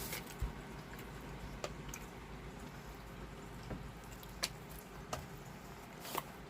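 Faint eating sounds: scattered small clicks and wet smacks as someone tastes fried chicken dipped in gravy.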